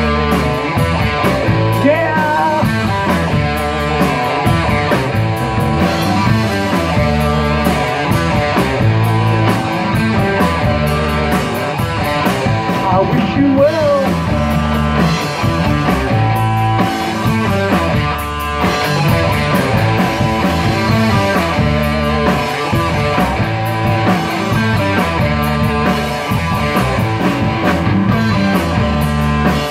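Live rock band with electric guitars, bass guitar and a drum kit playing an instrumental passage with no singing.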